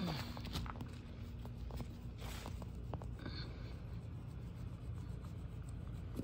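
A small hand garden tool scratching and scraping through potting soil, working granular fertilizer in, with light irregular clicks and a longer scrape a little over two seconds in.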